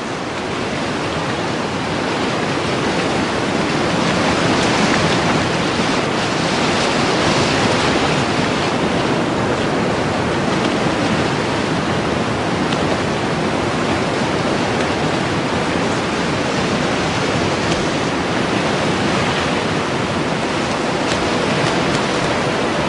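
Turbulent floodwater crashing through river rapids: a steady rushing noise that grows a little louder over the first few seconds.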